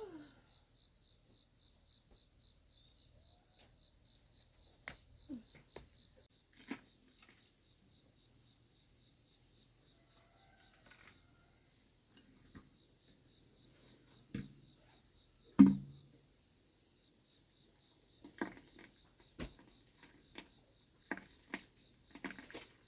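Steady high-pitched chorus of insects, with scattered short knocks, the loudest a thump about two-thirds of the way through.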